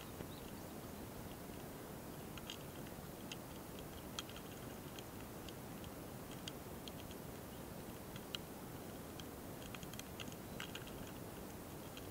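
Faint, irregular ticks and scratchy clicks, singly and in loose clusters, from a mating pair of small longhorn beetles (hosotora-kamikiri) recorded up close, over a steady hiss.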